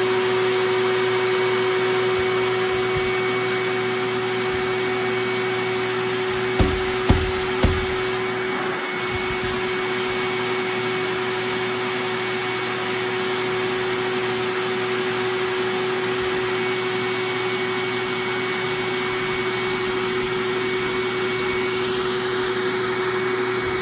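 A small electric blower fan running steadily, with a constant whir and a steady hum. Three quick knocks come close together about seven seconds in.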